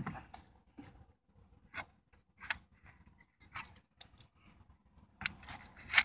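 Tin snips cutting thin aluminium flashing around a roof vent pipe: irregular short, sharp snips and crunches, the loudest cluster near the end. The flashing is being trimmed back so the wind cannot lift it again.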